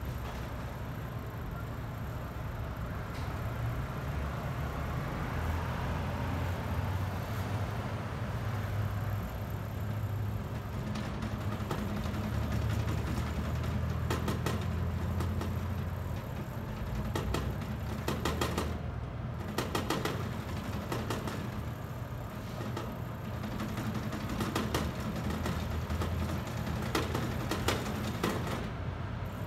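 City street traffic: a steady low engine rumble that swells and fades as vehicles pass, with scattered sharp clicks in short clusters midway and near the end.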